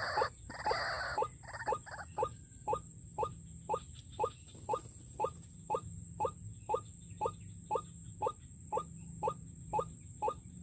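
White-breasted waterhen calls: a louder, rough burst of calling at the start, then a monotonous short "kwak" note repeated very evenly about twice a second, as from a waterhen call lure.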